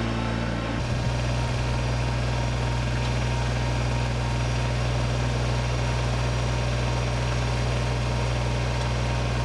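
Kubota BX25D compact tractor's three-cylinder diesel engine running steadily with a low, even drone; the tone of the sound shifts slightly about a second in.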